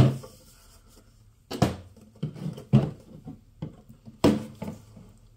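Knocks and clatters of hardware and parts being handled on a workbench: four sharp knocks, each followed by smaller rattles.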